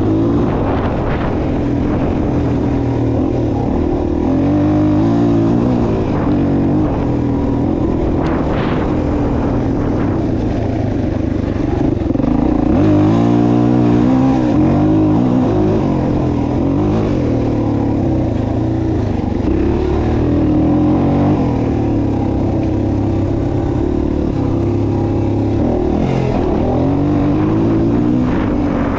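Vehicle engines running, their pitch rising and falling again and again as the revs change.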